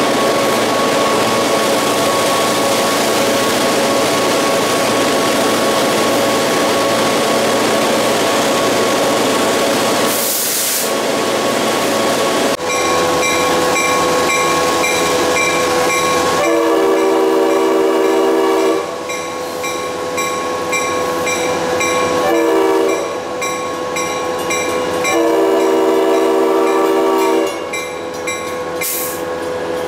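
Diesel locomotive's engine running steadily, heard from beside its hood. Later the locomotive's air horn sounds for a road crossing: a long blast, a short one, and another long blast.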